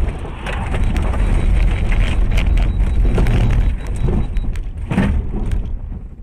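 Loud road and wind rumble inside a moving car's cabin on a wet highway, with scattered knocks and thumps.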